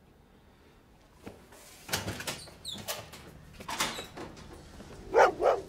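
Knocks and rattles of something being handled, then a dog barking twice in quick succession near the end.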